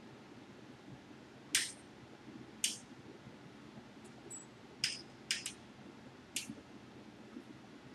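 Metal wrench clinking and clicking against the bolts and nuts of a sewing machine stand as they are tightened: about six short, sharp clicks spread out.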